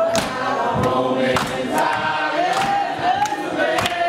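Congregation singing a gospel song together, with sharp beats keeping time about twice a second.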